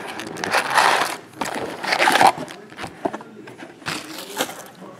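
Cardboard trading-card box being opened and its stack of sealed card packs slid out and set down: scraping and crinkling of cardboard and pack wrappers, in two loud bursts in the first half and a softer one near the end.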